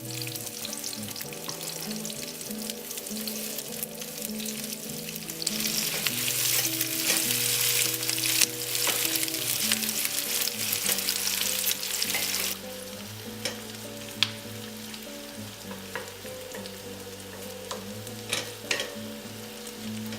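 Sliced onions sizzling as they fry in oil in a pan, louder for several seconds around the middle. Later come sharp clicks of a utensil stirring them in the pan.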